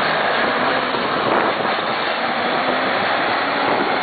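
Diesel engine of a tandem-axle dump truck running steadily as the truck moves slowly, mixed with wind noise on the microphone.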